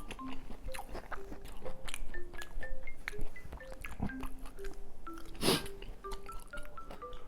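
Background music, a simple melody of short single notes, over a person's eating noises: chewing and small clicks, with one louder noisy burst about five and a half seconds in.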